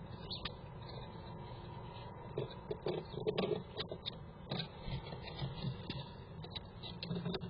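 Squirrel's claws scratching and scraping on the wooden walls of a nest box: irregular clicks and short scrapes starting about two seconds in, thickest a second or so later and again near the end, over a steady background hum.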